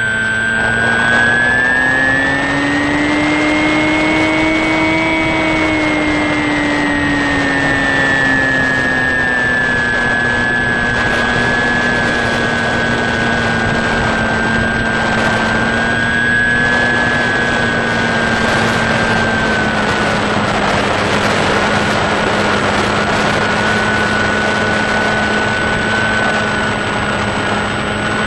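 Electric motor and propeller of a HobbyKing Sky Eye RC plane in flight, heard from on board. It drones steadily, its pitch rising a little from about a second in and easing back down over the following several seconds, over a steady rush of airflow.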